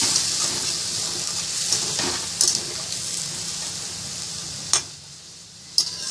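Chicken sizzling in a pan of spice gravy with added water while it is stirred, the utensil clicking against the pan a few times. The sizzle dies down just before five seconds in.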